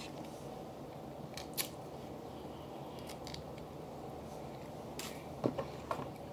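Boiled snow crab being picked apart and eaten by hand: a few short, sharp clicks and cracks of shell scattered over a steady low background noise.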